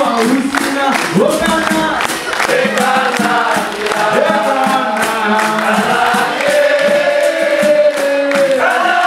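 Capoeira roda music: a chorus singing together over berimbaus, an atabaque drum, pandeiros and hand clapping, with a long held sung note in the second half.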